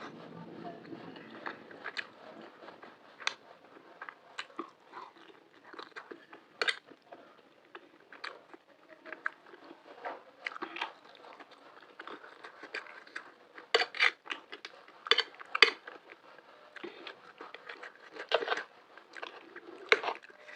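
Close-up eating sounds of macaroni with green chilies: wet chewing with irregular sharp crunchy bites, loudest in a cluster a little past the middle and again near the end.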